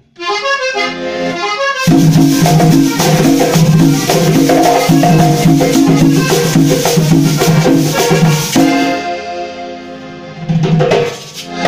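Live cumbia band playing. An accordion opens alone with a short phrase, then drums, a metal tube shaker and a bass line come in about two seconds in. Near the end the percussion drops back and the accordion carries on over a thinner accompaniment.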